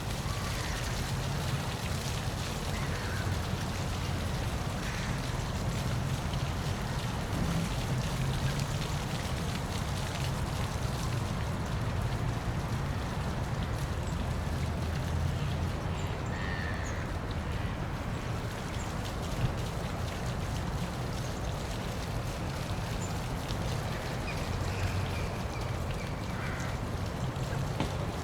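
Waterfall: water pouring and splashing in a steady, unbroken rush with a strong low rumble.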